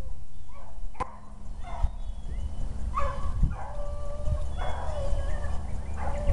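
Beagle hounds baying in drawn-out calls, several in a row, as they run a rabbit's scent trail. A sharp click about a second in.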